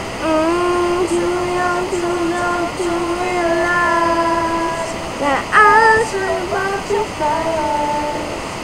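A young singer's unaccompanied voice singing a wordless "ooh" line from a pop ballad. One low note is held for about four seconds, then comes a higher run with vibrato around five seconds in, over a steady background hiss.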